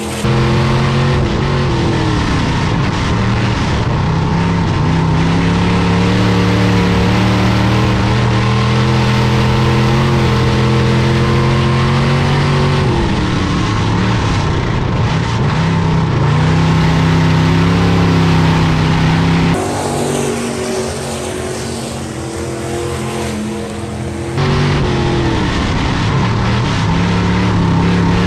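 A stock-car racing engine running hard, its pitch holding high, sagging as the throttle is lifted, then climbing again. This happens several times, as through the turns and down the straights of an oval track. The sound drops abruptly about two-thirds of the way through and comes back a few seconds later.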